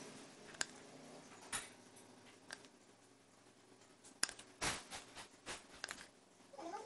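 Light, scattered clicks and knocks of a spatula against a glass mixing bowl and a metal muffin tin as batter is spooned into the cups, with one duller knock about halfway through.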